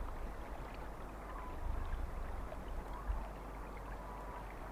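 Quiet outdoor ambience: a low, uneven rumble under a faint steady hiss, with no distinct event.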